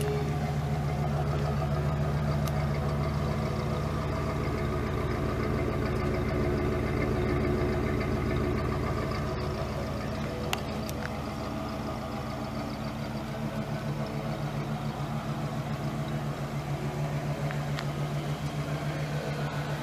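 1959 Plymouth Sport Fury's V8 idling steadily on its freshly rebuilt original Carter AFB four-barrel carburettor, heard from behind the car near the exhaust.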